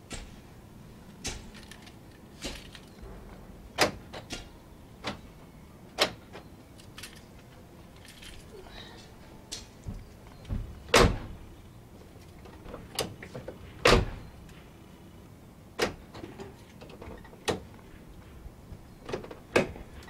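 Clicks and clacks of a 1999 Chevy Tahoe's front door latch, interior handle and lock being worked to test a newly replaced inside door handle, with two heavier thumps past the middle as the door is pulled shut.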